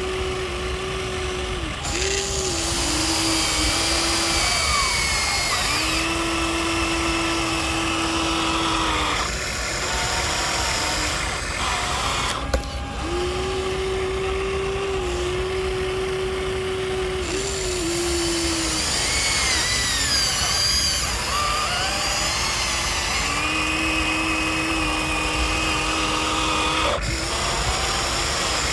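Electric motors of a Huina remote-control toy excavator whining in spells as it digs, lifts and swings. The pitch steps and glides as each movement starts and stops, with a sharp click about twelve seconds in.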